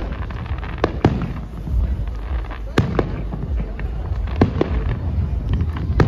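Fireworks going off: an irregular string of sharp bangs about every half second to a second, the loudest near the middle, over a steady low noise.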